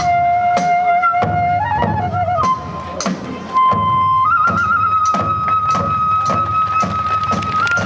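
Kagura accompaniment music: a Japanese bamboo transverse flute holds long notes that step up in pitch, over a steady beat of drum strokes and small cymbal clashes.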